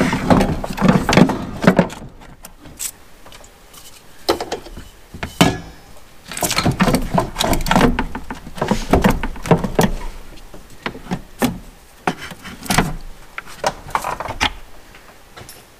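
Hands handling parts in a car engine bay: irregular knocks, clicks and rubbing of plastic and metal as a hose and wiring are pushed into place around the engine's open intake ports.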